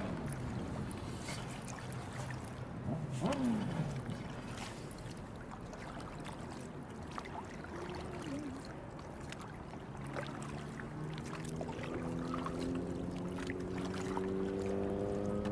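Kayak paddle blades dipping and splashing in calm sea water beside an inflatable tandem kayak, with scattered drips and small splashes. From about two-thirds of the way through, a low pitched hum joins in and slowly rises in pitch.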